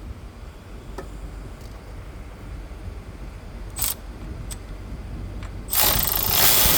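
A few light metallic clicks, then a cordless electric ratchet starts running loudly about six seconds in, spinning out a 15 mm caliper bracket bolt.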